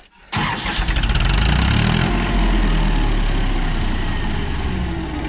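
Powertrac Euro 50 tractor's diesel engine starting up suddenly about a third of a second in, then running steadily with an even rapid firing pulse.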